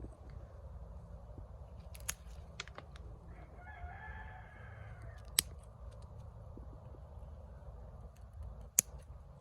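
A rooster crows once, faintly, a few seconds in. Sharp snips of scissors cutting bottlebrush stems are heard several times, the loudest two past the middle and near the end.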